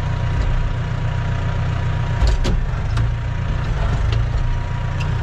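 Massey Ferguson tractor's diesel engine running steadily under load, heard inside the cab while towing a trailer, with a few sharp knocks, the loudest about two and a half seconds in.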